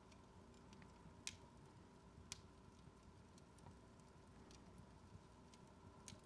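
Near silence: faint room tone with a low steady hum and scattered faint ticks, two slightly louder ones about a second and two seconds in.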